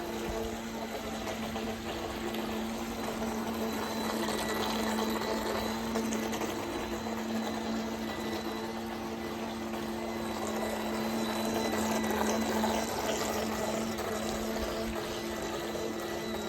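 Feilun FT012 brushless RC racing boat running on a pool: a steady motor hum with water noise that swells twice as the boat passes nearer.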